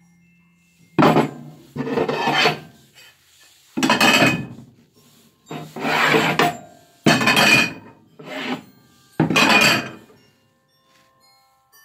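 Gloved hands rubbing and scraping against china plates and the camera close to the microphone. The noise comes in about seven rough strokes, each under a second long.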